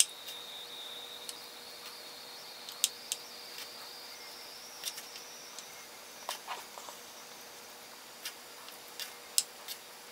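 Light, irregular clicks and taps of a small plastic measuring spoon knocking against a plastic ice cube tray as chopped cilantro is scooped and pressed into the cells. A faint steady high-pitched whine sits underneath, creeping up in pitch partway through.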